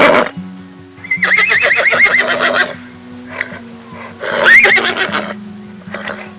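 An animal calling twice over soft background music: a long call with a quavering, wavering pitch, then a shorter call that rises and falls, with the tail of an earlier call in the first moment.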